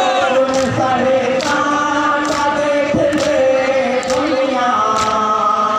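Loud chant-like singing in held notes over crowd noise, with a sharp beat just under once a second.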